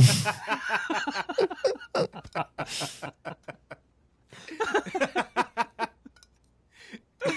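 Laughter: quick repeated bursts of chuckling and snickering that break off briefly a couple of times.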